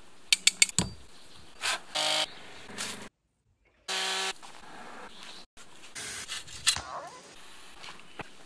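Short bits of outdoor work sound cut one after another: a few sharp knocks near the start, then a chainsaw running briefly, starting abruptly about four seconds in.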